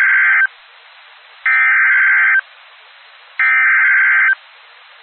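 Emergency Alert System SAME header: the end of one burst of buzzy digital data tones, then two more bursts, each about a second long with about a second's pause between. The bursts carry the alert's coded details ahead of the attention tone.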